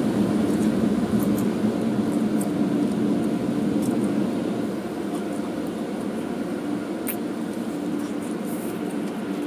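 Automatic car wash heard from inside the car: a steady rush of water spray with a constant machine hum, muffled through the closed windows, easing slightly about halfway through.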